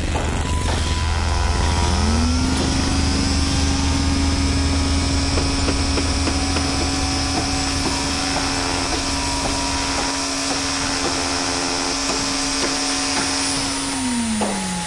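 A machine's motor spinning up to a steady whine about two seconds in, over a low rumble, then winding down near the end, with scattered light clicks: construction-site machinery sound effect.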